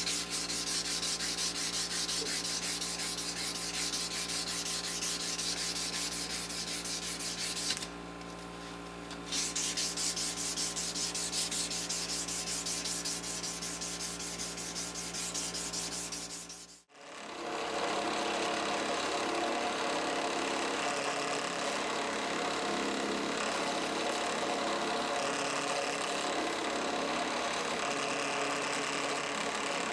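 Fast back-and-forth hand-sanding strokes on a knife's wooden handle scales, pausing briefly about eight seconds in. About seventeen seconds in it cuts to a drill press running steadily with a cloth buffing wheel spinning in its chuck.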